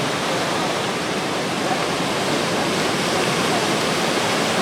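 Steady roar of heavy surf breaking on a beach, driven by a typhoon swell.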